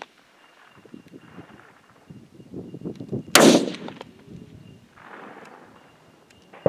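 A single loud F-Class target rifle shot about three and a half seconds in, a sharp crack with a short echoing tail, against quiet open-range background.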